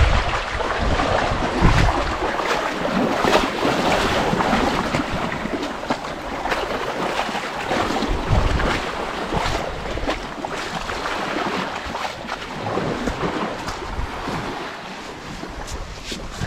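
Waves washing against a rocky shore, with wind buffeting the microphone in a few deep gusts and scattered small clicks and knocks.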